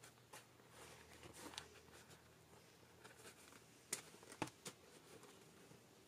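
Faint handling of a canvas high-top sneaker and its laces: soft rustling and scraping, with three sharp clicks about four to five seconds in.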